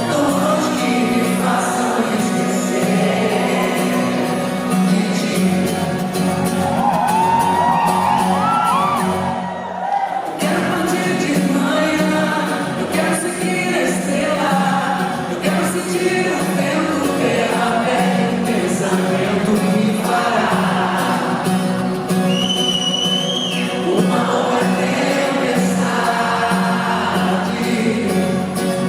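Live band music with singing, a pop song performed on stage, with a brief break just before ten seconds in.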